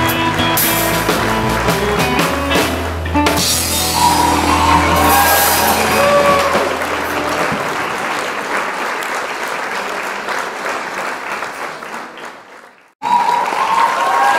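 Live band with drum kit and guitar ends a song on a held chord with cymbal crashes, then applause fades away. About a second before the end, a different tune starts suddenly.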